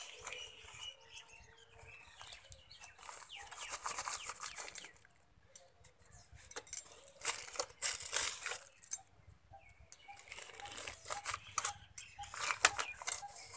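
Plastic bottle pot and crinkly snack-packet lining rustling and crackling in irregular bursts as hands press soil and a croton cutting into it.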